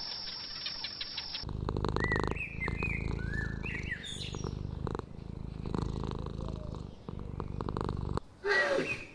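Domestic cat purring: a steady low rumble of rapid pulses that starts about a second and a half in and stops near the end. Birds chirp in the background early in the purr.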